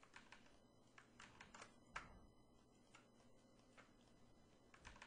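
Near silence with faint, irregular clicking of computer keys.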